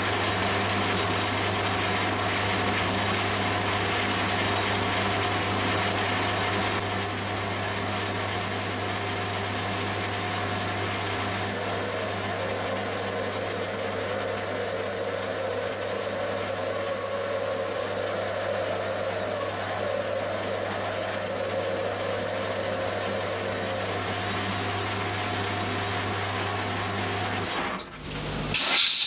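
Metal lathe running with a steady low hum while a 3/8 inch end mill is fed into the bore of a spinning cast-iron piston blank, with faint high cutting tones joining partway through. Near the end the spindle stops with a brief loud noise.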